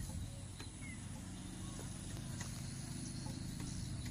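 Sumitomo excavator's diesel engine idling with a low, steady chug, its note steadying about a second in.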